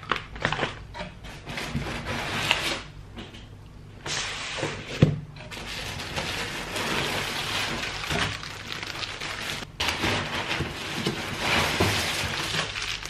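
Packing paper rustling and crinkling, with cardboard box flaps being handled, as items are pulled out of a shipping box. There is a sharp knock about five seconds in.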